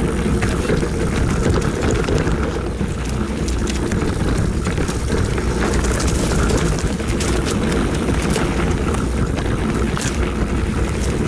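Rocky Mountain Altitude full-suspension mountain bike descending a dirt trail: a steady rumble of wind on the camera microphone with frequent sharp clicks and rattles from the bike over the rough ground.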